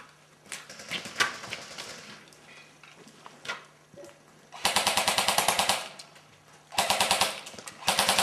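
Airsoft guns firing: a few scattered single pops, then three bursts of rapid full-auto fire, the first about a second long starting just past halfway, the last running on at the end.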